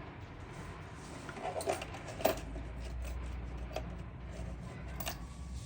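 Small metal engine parts and hand tools clinking and tapping as they are handled: a few separate light clicks and knocks, the sharpest about two seconds in, over a steady low hum.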